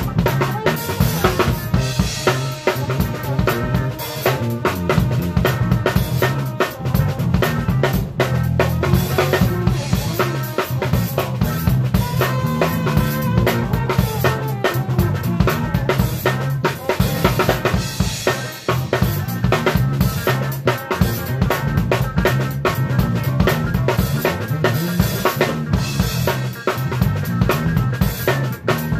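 Drum kit played close up in a live funk-soul band: snare, bass drum and cymbals struck in a steady groove. A bass line and other band instruments run underneath.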